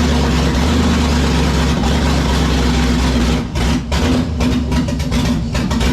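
Swapped 5.3 LS V8 in a 1948 Dodge pickup, just started and running, steady at first. About three and a half seconds in it turns uneven and rough: the sputter the owner likens to the engine running out of gas, from a fault he has not yet found.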